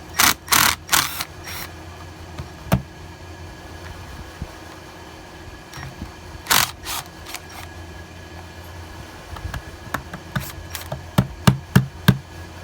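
Hand tools and chainsaw parts clicking, knocking and clattering during disassembly: a burst of rattling at the start, a few single knocks, then a quick run of clicks near the end.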